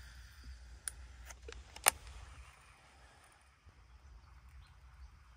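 A few short, sharp clicks, the loudest about two seconds in, over a faint low outdoor background: handling noise from a baitcasting rod and reel while a lure is retrieved.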